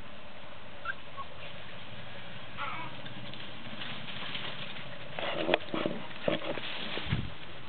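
Bouvier des Flandres adult dog and puppy at play: a short, faint dog whine about two and a half seconds in, then a cluster of knocks and rustles from about five seconds, ending in a low thump near the end.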